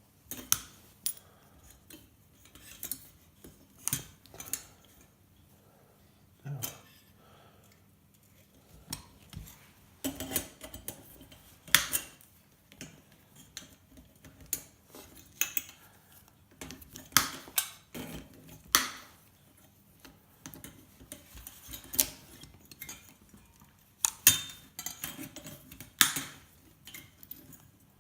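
Irregular sharp metallic clinks and clicks of hand tools and metal parts of an old light fitting being handled and cut apart, spaced a second or a few seconds apart.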